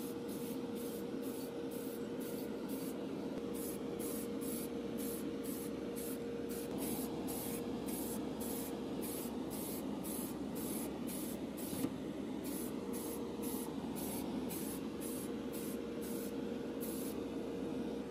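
Aerosol spray paint can being sprayed in many short, quick bursts, about two a second, each a brief hiss, over a steady low hum.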